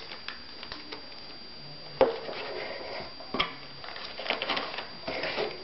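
Small quadcopter frame parts being handled and set down in a cardboard box: a sharp click about two seconds in, another about a second and a half later, with light rattling and rustling between.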